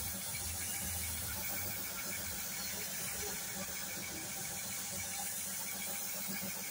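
Paint spray gun hissing steadily as compressed air atomises white paint onto the van's side panel, over a constant low machine hum.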